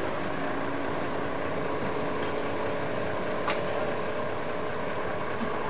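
Street traffic ambience with a vehicle engine running steadily, giving a constant hum, and a faint click about three and a half seconds in.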